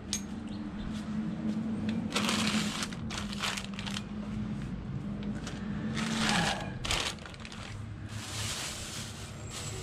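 Plastic bags rustling and crinkling in several bursts as they are pulled about by hand. Underneath is a low steady hum that stops about six and a half seconds in.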